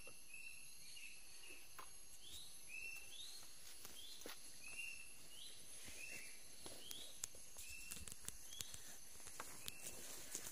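Forest ambience: a steady high insect whine, and a creature repeating short rising chirps about one to two times a second. Faint clicks and rustles come from hands binding cord around a wooden stick.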